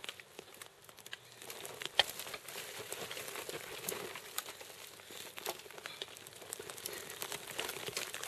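Loose dry dirt and small stones scraping and crunching as a person slides down a steep, crumbling sandy slope on his backside, with scattered clicks of falling debris. There is one louder knock about two seconds in.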